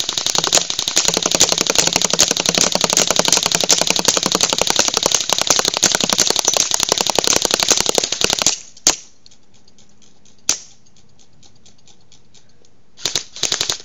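Airsoft guns firing full auto: a long unbroken stream of rapid shots for about eight and a half seconds. Then two single shots a second and a half apart, and two short bursts near the end.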